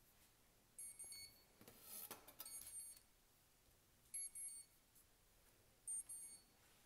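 High-pitched electronic beeper sounding a short burst of beeps that repeats about every one and a half to two seconds, from the powered-up drone electronics or radio. A brief soft rustle about two seconds in.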